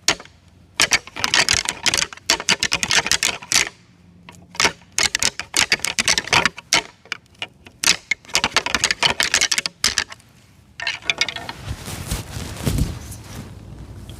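Deer antlers rattled together to imitate two bucks fighting. It comes in bursts of rapid clacking, each a second or two long, with short pauses between them. From about eleven seconds in, the clacking gives way to quieter, steadier noise.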